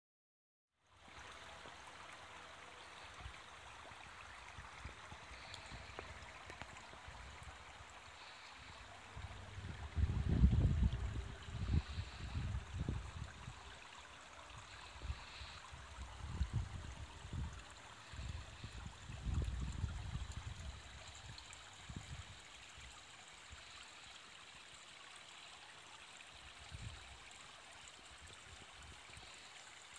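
Steady trickling of water around the swimming pool, with irregular low rumbling gusts of wind on the microphone through the middle of the clip, the strongest about ten seconds in.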